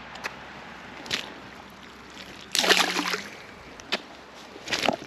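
Water splashing in a few short bursts, the loudest lasting about half a second, two and a half seconds in.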